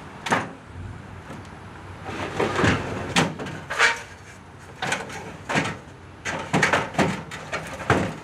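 Irregular knocks and clunks of hard objects being handled, about a dozen over several seconds, some followed by a short scrape.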